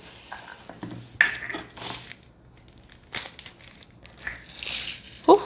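Thin plastic bags of diamond painting drills crinkling and rustling as they are handled, with scattered small clicks. A brief vocal sound just before the end.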